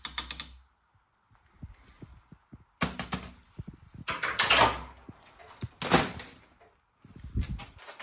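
A series of knocks, clicks and clattering handling noises with several short, louder scraping or swishing bursts, over a faint steady hiss.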